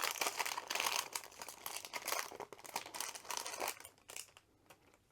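Plastic resealable bag crinkling as it is opened and its contents are pulled out, for about four seconds. A few light clicks follow near the end.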